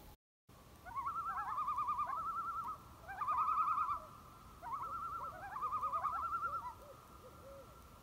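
Common loon giving tremolo calls: three bouts of rapid, wavering, laughter-like notes, each opening with a rising note, with fainter lower notes near the end.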